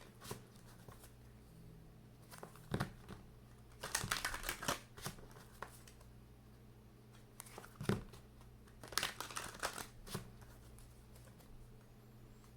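A tarot card deck being shuffled and handled in four short bursts of crackly rustling and card clicks, with quiet pauses between them.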